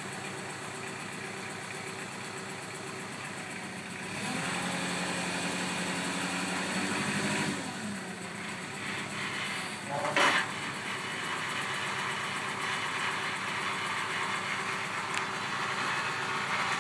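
Kubota tractor's diesel engine running steadily, speeding up about four seconds in for some three seconds and then settling back. A single sharp knock cuts through about ten seconds in.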